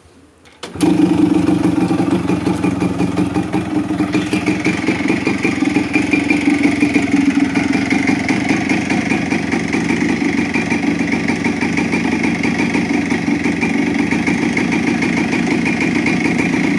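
Yamaha RS100's single-cylinder two-stroke engine starts about a second in and then idles steadily with a fast, even pulse, running on its freshly cleaned carburettor.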